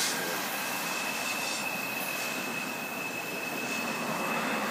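CP Rail double-stack container freight train rolling around a curve, its cars giving a steady rumble. About half a second in, a thin, steady high-pitched squeal starts from the wheels grinding against the rail on the curve and holds.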